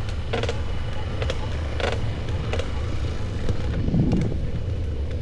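Wind buffeting the microphone while riding a bicycle: a steady low rumble, with a few brief sharp sounds over it in the first three seconds.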